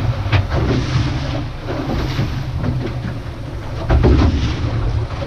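Wind buffeting the microphone over the rush of water and a running boat engine on a fishing boat at sea, with a heavier gust about four seconds in.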